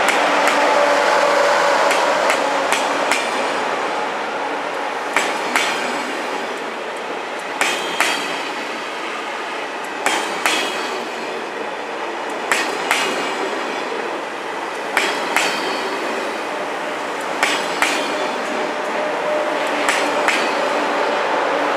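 A TGV Réseau trainset rolling slowly past, its wheels knocking over a rail joint in pairs of sharp clacks, two close together about every two and a half seconds, as each bogie's two axles cross it. A steady hum from the train fades after the start and returns near the end.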